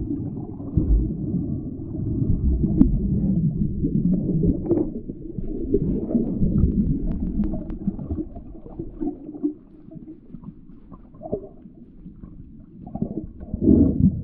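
Muffled underwater sound of water moving around a submerged camera: a low, shifting rumble with scattered clicks and taps, quieter for a few seconds past the middle.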